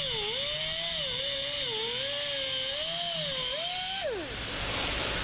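Pneumatic cutoff wheel ("muffler cutter") slicing through the sheet-metal seam of a car's rear quarter panel: a high whine that dips and recovers as the wheel bites into the metal. About four seconds in the whine falls away and a loud rush of hissing air takes over.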